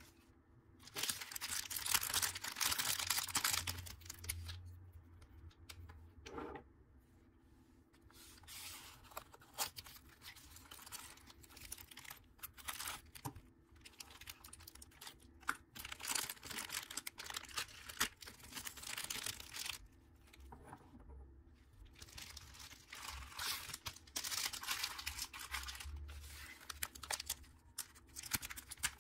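Plastic packaging bags crinkling and being torn open by hand, in repeated bouts with short pauses between them.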